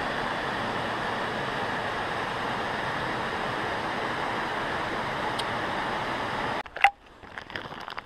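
Steady rushing of a waterfall, which stops abruptly about six and a half seconds in. A single sharp knock follows, then light irregular footsteps begin on a wooden boardwalk.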